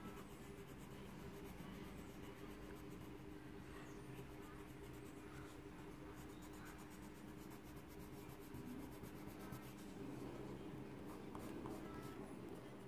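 Pink coloured pencil rubbing back and forth on drawing paper as an area is coloured in: a faint, steady scratching, over a low steady hum.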